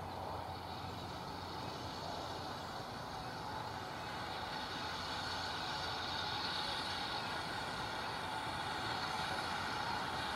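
GWR 5600-class 0-6-2 tank locomotive no. 5619 hissing steam from its open cylinder drain cocks as it runs slowly toward the listener. The steady hiss grows louder through the second half.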